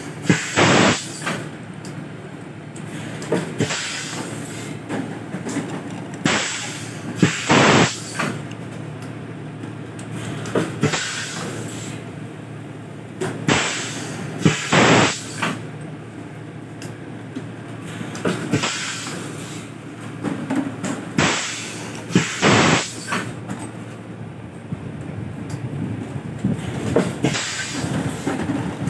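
PET bottle blow moulding machine at work: sharp hissing blasts of compressed air every few seconds, often two close together, over a steady machine hum.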